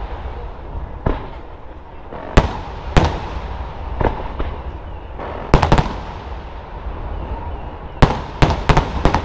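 Aerial firework shells bursting overhead: single sharp bangs every second or so, a tight cluster of several a little past the middle, and a rapid run of bangs near the end, over continuous noise from the display.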